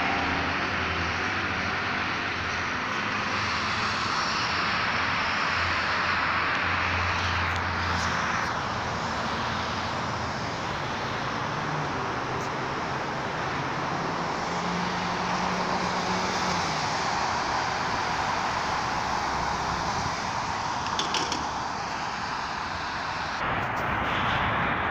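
Steady city road traffic: a constant wash of passing cars, with a low engine hum that stops about eight seconds in.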